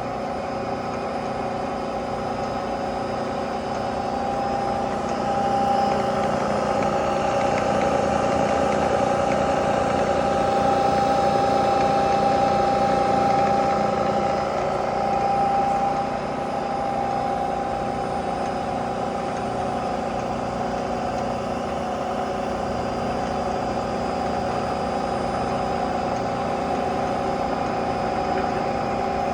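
Bridgeport Series 1 2 hp CNC vertical mill running a program: spindle turning at 2000 RPM while all three axes move together, a steady mechanical whine with several constant tones. It grows louder from about five seconds in and drops back about halfway through.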